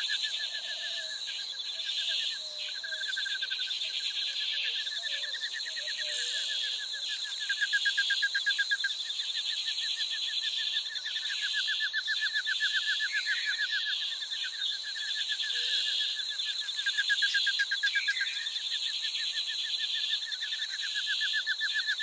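Outdoor nature ambience: a continuous chorus of high, rapid insect trills in repeating phrases of a second or two, with a few short bird chirps over it.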